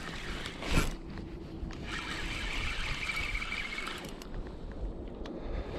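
Wind and water noise around a small fishing boat, with a brief knock about a second in and a faint high whine for about two seconds in the middle.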